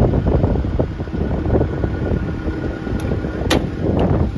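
Wind buffeting the microphone over a steady low rumble, typical of the Caterpillar 312F GC excavator's diesel engine running. A sharp click about three and a half seconds in, with a fainter one just before it, fits the cab door latch releasing as the door opens.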